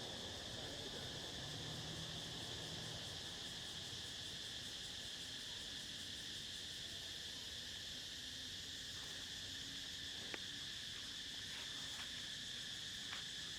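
Insects chirring in a steady, high-pitched drone, with a few faint clicks, the sharpest about ten seconds in.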